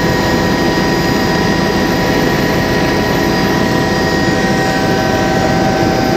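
Helicopter engine and rotor running steadily in flight: an even, loud rumble with several steady whining tones above it.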